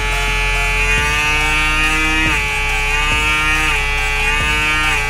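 Wmark NG X1 cordless hair clipper's vector motor running with a steady high-pitched whine. Its pitch dips briefly a few times, about two, three and a half and four and a half seconds in.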